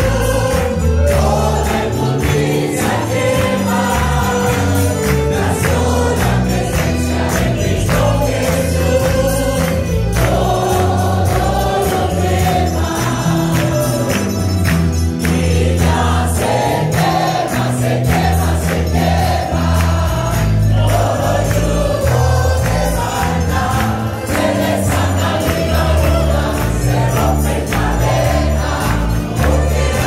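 A congregation and church choir sing a gospel chorus together, backed by a live band with a moving bass line and percussion.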